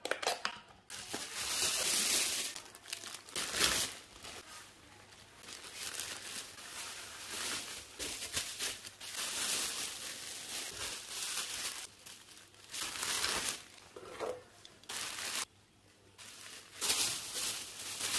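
Paper and cardboard packaging crinkling and rustling in irregular bursts as boxed and folded clothing is handled and lifted out of a cardboard shipping box, with a short lull about three-quarters of the way through.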